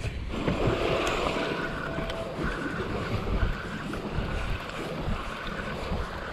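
Wind on the microphone and small waves lapping against a panga's hull: a steady rushing noise.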